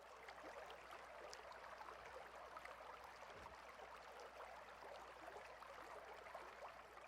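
Faint, muffled rushing of a mountain stream heard underwater through a submerged action camera: an even hiss with scattered faint ticks and a steady low hum.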